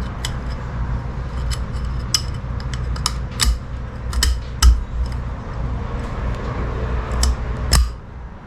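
Small metal transmission parts being handled on the bench, giving irregular sharp clinks and clicks as they knock against each other, over a steady low hum.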